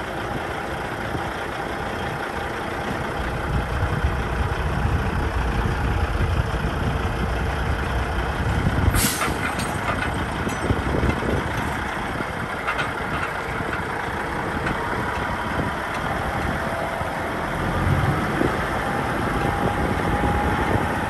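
Diesel engine of a 2005 Kenworth tri-axle log truck idling steadily, with a short sharp burst of air hiss from its air system about nine seconds in.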